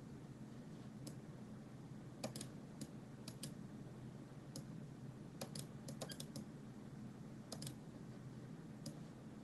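Light clicks of a computer mouse and keyboard, scattered and in a few quick runs, over a low steady hum.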